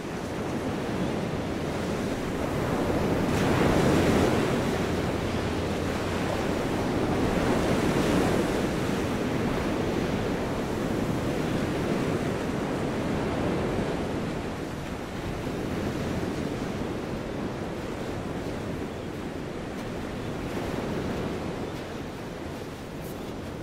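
Ocean surf: waves breaking and washing up a sandy beach in a continuous rush, swelling twice in the first half and easing off somewhat later.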